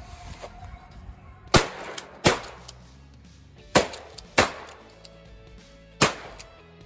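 Five shotgun blasts fired at a snowshoe hare, in two quick pairs and then a single, each cutting off sharply with a short echo. Soft background music comes in about halfway through.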